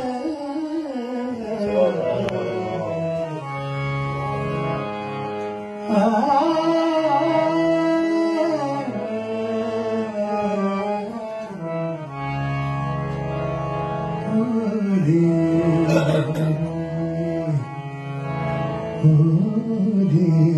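Male singer performing a ghazal in long, gliding, ornamented phrases over the sustained reed tones of a harmonium, with a few tabla strokes.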